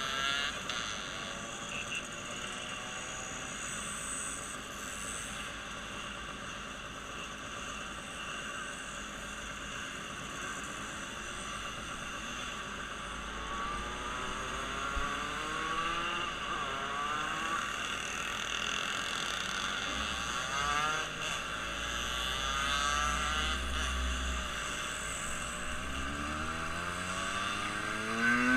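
Motor vehicle engines running over a steady road noise, with several engines revving up and passing in the second half, the loudest rising rev near the end.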